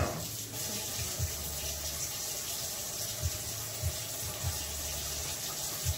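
Kitchen sink tap running steadily while hands are washed under it, with a few soft low thumps.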